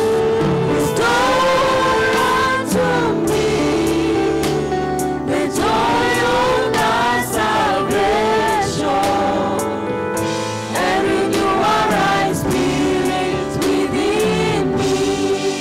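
Gospel praise team singing into microphones through a PA, voices in harmony over steady instrumental accompaniment.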